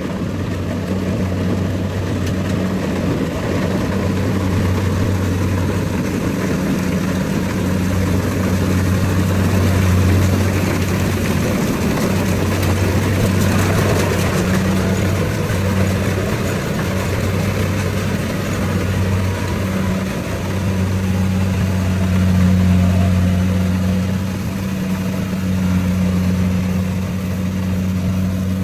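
Rice combine harvester running, its engine making a steady low drone.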